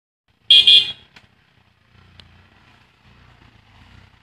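A brief, loud, shrill burst about half a second in, then, from about two seconds in, the faint low rumble of a motorcycle engine as the bike climbs a dirt path out of the stream.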